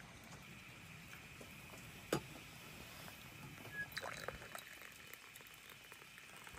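Tea poured from a teapot into a glass, then hot water running from a samovar's tap into the glass; faint, with one sharp tap about two seconds in.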